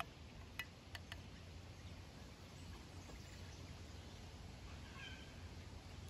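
Quiet outdoor ambience with a steady low rumble. A few light clicks come within the first second or so, and a short bird chirp about five seconds in.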